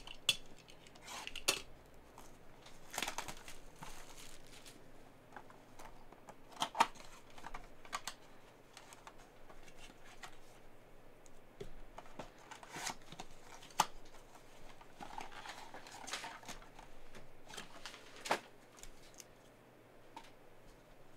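A sealed cardboard trading-card box being unwrapped and opened by hand: shrink wrap torn off, flaps pulled open and foil card packs slid out and set down. It is a run of rustling, crinkling and tearing with scattered sharp clicks and taps.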